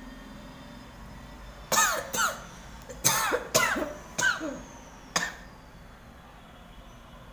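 A woman coughing in a fit: six sharp coughs in quick succession over about three and a half seconds, set off by inhaled red chilli powder burning her nose and mouth.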